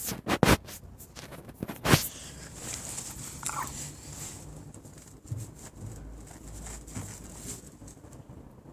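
Sharp knocks and clicks in the first two seconds, then faint rustling and handling noise from a handheld phone being moved close along a car door.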